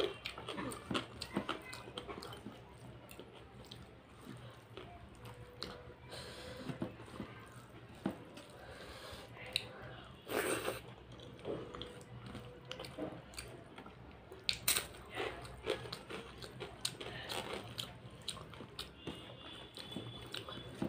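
Close-up eating sounds: chewing and crunching a mouthful of rice with fried vegetables eaten by hand, with many small wet mouth clicks. Two louder sharp crunches come about ten and fifteen seconds in. Fingers squish rice and dal together on the plate.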